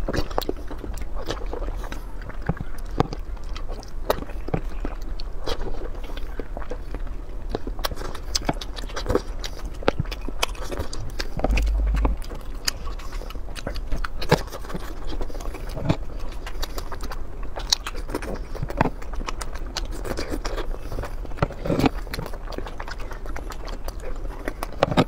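Close-miked eating: chewing and biting of soft, sauce-coated food, with many short, irregular wet mouth clicks and smacks. A steady low hum runs underneath.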